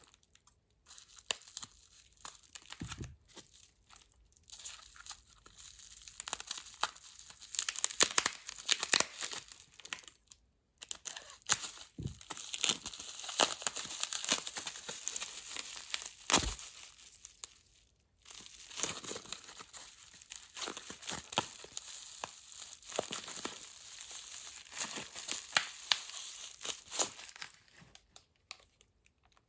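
Plastic packaging crinkling and rustling as it is handled, with scattered small clicks and knocks.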